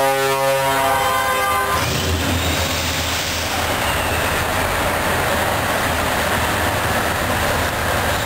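Truck air horns sounding a loud multi-note chord that cuts off about two seconds in, followed by the loud, steady rumble of a Scania V8 truck engine and exhaust, echoing in a concrete tunnel.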